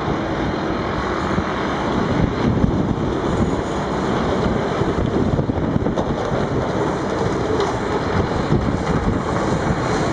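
Heavy diesel machinery working in a rock quarry: a wheel loader and rock trucks running alongside a mobile rock crusher, making a steady, dense drone with no single event standing out.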